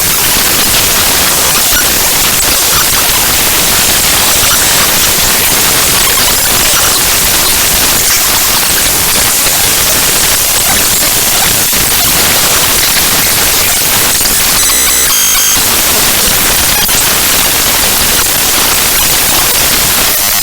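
Raw binary data of the ffmpeg.exe program file played back as audio: loud, harsh, static-like noise, briefly turning into a buzzy tone about fifteen seconds in.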